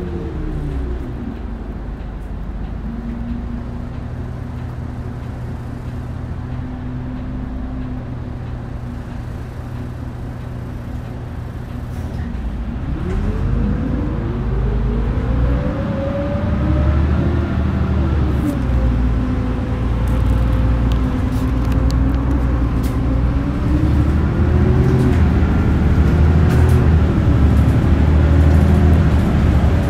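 Mitsubishi Fuso Aero Star city bus (LKG-MP37FKF) heard from inside the cabin. Its six-cylinder diesel runs low and steady, then about twelve seconds in the bus pulls away. The engine note rises, drops back at each gear change and rises again, getting louder as the bus gathers speed.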